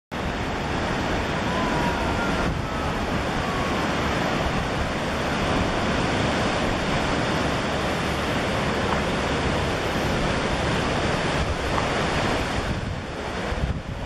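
Ocean surf breaking and washing below a rocky cliff, with wind on the microphone: a steady, continuous rush of noise.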